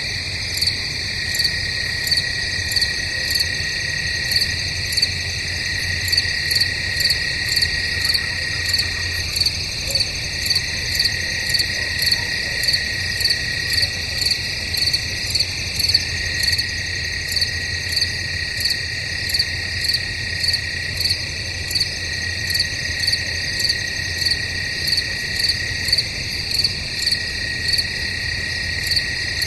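Crickets chirping in woods at night: a steady high trill under a louder chirp that pulses evenly, somewhat under twice a second.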